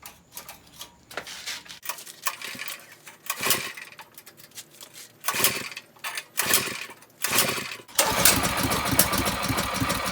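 Predator small four-stroke engine on a mini bike being pull-started: several separate pulls on the recoil starter, then the engine catches about eight seconds in and keeps running.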